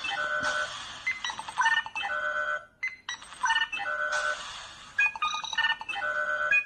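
Electronic sound effects from a digital number-matching game: quick runs of short synthesized bleeps and chime-like tones in repeating patterns, as the numbers are revealed, with a brief gap about three seconds in.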